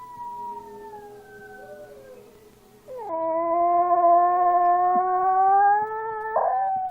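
A pet howling in two long, drawn-out howls. The first slides slowly down in pitch and fades out about two and a half seconds in. The second, louder one starts about three seconds in, holds steady with a slight rise, then breaks upward near the end.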